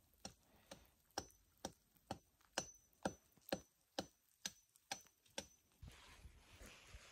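Steady ticking, about two sharp ticks a second, each with a faint high ping. The ticking stops a little over five seconds in, leaving a faint hiss.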